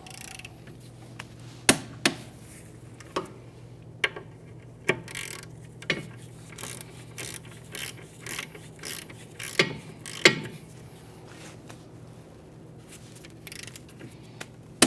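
Socket ratchet clicking in short, irregular strokes as the caliper bracket bolts are run down and tightened.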